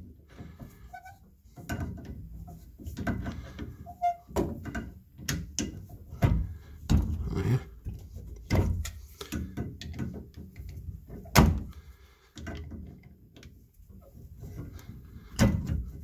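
Large tongue-and-groove pliers clicking and knocking against the brass Moen Moentrol valve as they grip and twist out the 1423 balancing spool: a string of irregular metal knocks with muffled handling noise between, the sharpest about eleven seconds in.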